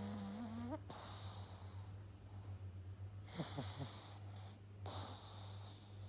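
Seven-month-old pug puppy snoring in its sleep. A pitched snore comes near the start and another about halfway through, with noisy breaths between.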